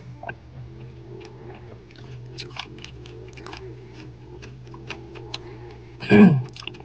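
Close-up eating mouth sounds: a string of small clicks and smacks as a person chews and swallows after sipping broth. A short, loud vocal sound falling in pitch comes near the end.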